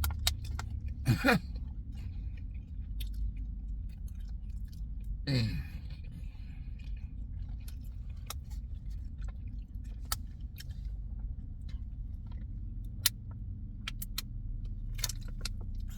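A person chewing food, with scattered mouth clicks and smacks and two short falling hums of approval about one and five seconds in, over a steady low hum.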